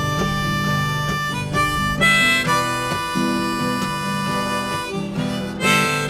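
Harmonica in a neck rack playing a melody with long held notes over strummed acoustic guitar: the instrumental intro to a folk-style song.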